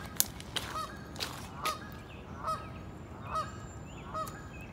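Goose honking over and over in short, arched honks, sometimes about two a second, with a sharp knock just after the start.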